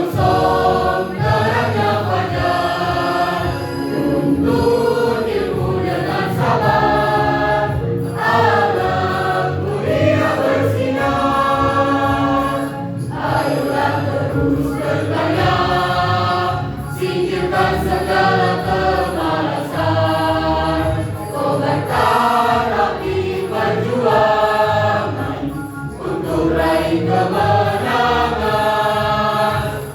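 A school choir singing a march in several voice parts, with accompaniment.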